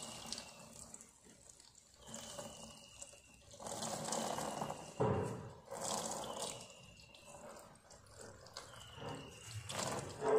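Liquid poured from a plastic bottle over an embossed silver ornament, splashing and trickling into a plastic tub of water in a few separate pours, with a couple of sharp knocks. A faint high falling whistle repeats every few seconds.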